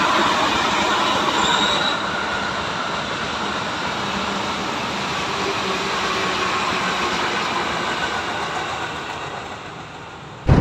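A train running past on the rails, a steady rush of wheel and rail noise with faint brief squeals, fading away over the last few seconds before being cut off abruptly by music.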